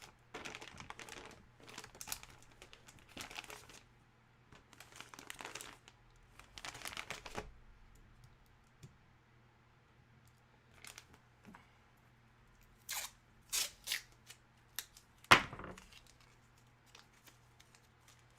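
Packaging being torn and crinkled as a hockey jersey is unwrapped, in rustling bursts over the first seven seconds or so. A run of sharp snaps follows in the second half, with one loud snap about fifteen seconds in.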